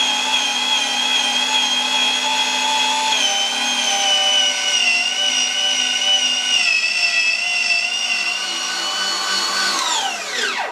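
Electric meat grinder running with a steady motor whine as boiled pork is fed through it, the pitch sagging slightly now and then under load. Near the end the motor stops and its whine falls away as it winds down.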